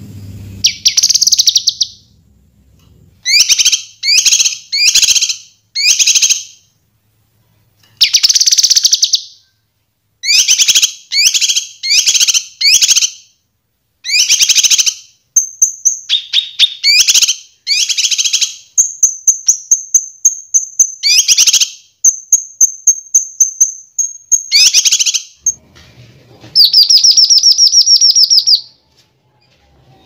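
A kinoi leafbird singing in loud, short bursts of fast, high chattering notes separated by brief pauses. A long, thin, high whistle is held through the middle, and a rapid trill of quick repeated notes comes near the end.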